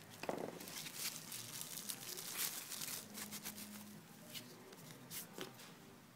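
Rustling and light clicking handling noise close to the microphone, scattered irregularly and thinning out about five and a half seconds in.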